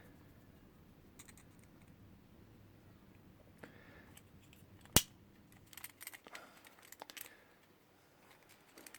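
Light metal clicks and taps from a pick tool working a door knob set, pressing in the retainer wafer through the access window to release the knob. One sharp click about halfway through stands out; the rest is faint handling.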